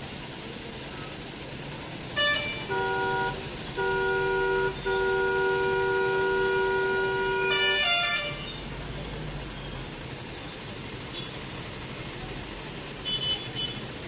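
Vehicle horns honking in street traffic over a steady hum of street noise. A short honk comes about two seconds in. Then a steady horn sounds three times, its last blast held for about three seconds, with a second, harsher horn over its end. Brief high beeps come near the end.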